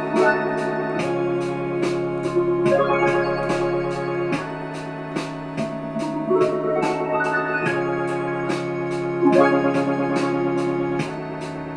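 Suzuki Omnichord OM-100 playing held electronic chords that change every second or two, with rising runs of notes strummed across its touch plate and a steady ticking rhythm underneath.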